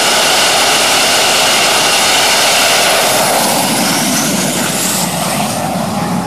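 Turbine engine of a jet-powered drag van running loud, with a steady high whine over a rushing noise. About three seconds in, a whine climbs in pitch and the sound begins to fall away toward the end.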